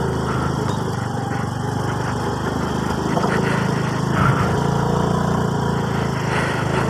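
Motor scooter's small engine running steadily as it rides along a rough gravel dirt track.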